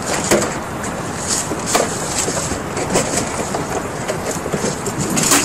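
Steady rushing noise with scattered knocks and clicks from a car being loaded through its open door.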